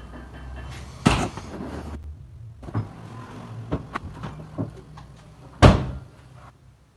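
PVC-sheet kitchen cabinet doors being worked by hand: a sharp knock as a door shuts about a second in, a few lighter clicks and knocks, and the loudest bang about five and a half seconds in.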